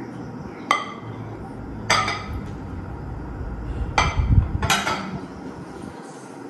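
Glazed dinner plates clinking against each other as they are stacked, four sharp clinks with a short ring. A dull thump comes between the last two as the stack is set down.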